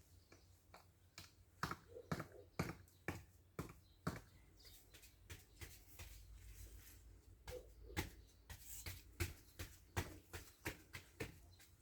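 A string of irregular light knocks and clicks, about twenty in all, some louder than others, like small hard objects being tapped or set down.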